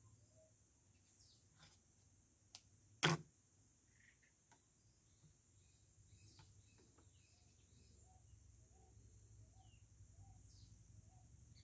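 Quiet handling at a sewing machine while its needle is being rethreaded: a few faint clicks and one sharp click about three seconds in, with the machine itself not running. From about halfway, a faint bird call repeats about twice a second.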